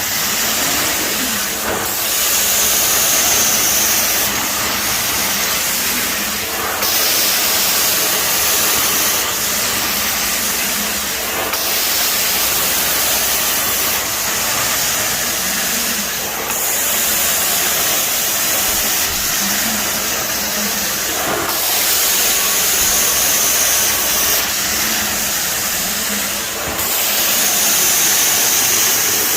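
Hot-water extraction wand of a Mytee Escape truckmount working carpet: a loud, steady hissing rush of spray and suction that swells and eases every few seconds as the wand is pushed and pulled in strokes.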